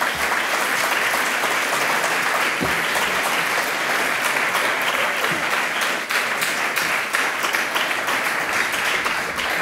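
An audience applauding: steady, dense clapping from many hands.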